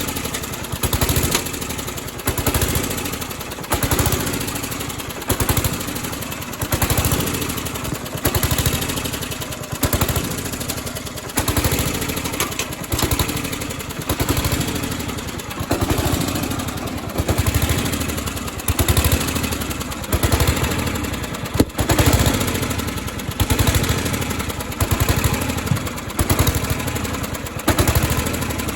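Riding lawnmower's small gasoline engine running, its loudness swelling and dropping back about every second and a half. The owner traces the trouble to the carburetor running lean, too much air and not enough gas.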